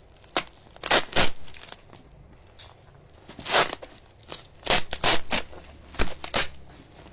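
Yellow packing tape being slit and peeled off a bubble-wrapped parcel, with the bubble wrap crinkling: a series of short, sharp ripping and crackling noises with brief pauses between.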